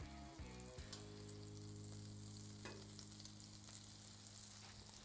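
Butter and food sizzling faintly and steadily on a hot Blackstone flat-top griddle, with light crackling.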